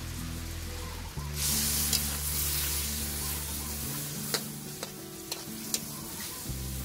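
Metal spatula stirring through a steel wok of boiling coconut milk and vegetables: a loud bubbling hiss comes in about one and a half seconds in, with a few sharp clicks of the spatula against the pan.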